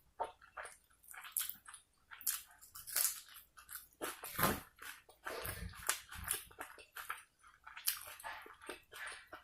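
Close-miked chewing and mouth sounds of someone eating egg biryani and chicken kosha: irregular wet smacks and clicks, with a louder, fuller mouthful about halfway through.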